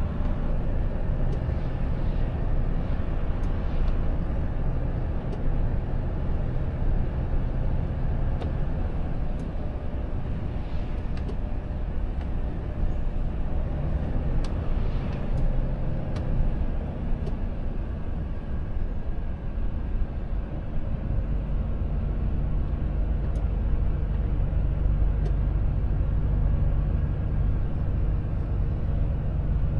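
Volvo FH truck's diesel engine and tyres on a wet road, heard inside the cab: a steady low drone with a hiss of spray. Oncoming vehicles swish past a few times, and the low rumble grows heavier in the last third.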